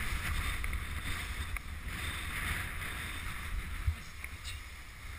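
Runners of a wooden krňačka sled sliding and scraping over packed snow on a downhill run: a steady hiss over a low rumble of wind on the microphone, with a couple of light knocks from the sled frame.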